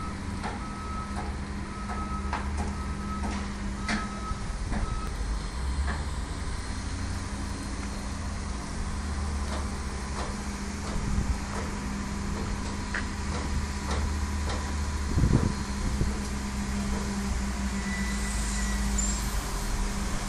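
Concrete block production machinery running with a steady low hum and scattered clicks and knocks. A repeating electronic warning beep sounds about once a second for the first five seconds, and a louder thud comes about fifteen seconds in.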